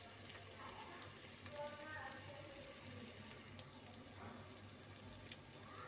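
Faint, steady sizzle of raw rice grains frying in oil in an aluminium pot, toasting until crisp, with a few small ticks.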